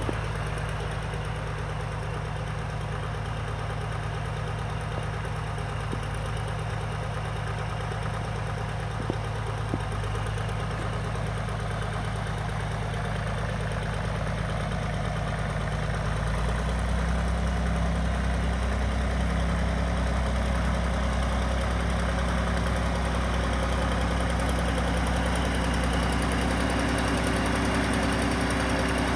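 Restored Case 930 Comfort King tractor's engine running steadily as the tractor is driven slowly over snow. About halfway through the engine note changes and gets a little louder.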